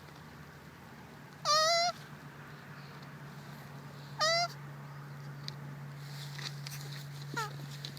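A turtle's mating calls: two loud, wavering squeaky cries a few seconds apart, then a short falling one near the end, over a steady low hum.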